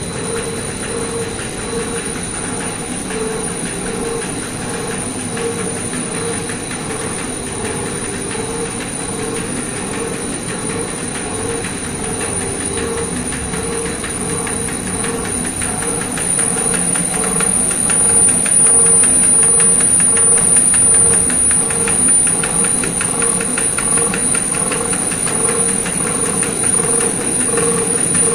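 DABA DBGS-370B label finishing machine running: a steady mechanical hum with a rhythmic pulse and fast fine ticking under a thin high whine. It gets louder a little past halfway.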